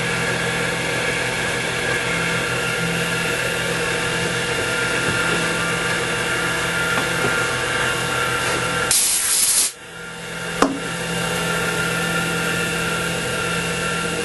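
X2 mini mill running steadily with its spindle turning a slightly dull drill bit through a hole. About nine seconds in there is a brief hiss, the sound drops away for a moment, a sharp click follows, and the steady running comes back.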